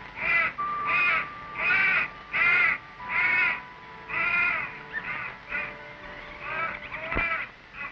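A run of harsh, crow-like cawing calls, about ten of them, one every second or less, over a thin steady high tone.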